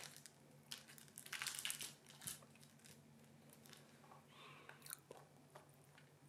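Faint crunching and clicking of a kitten biting and chewing a toy mouse, with a quick flurry of bites about a second in and scattered clicks after.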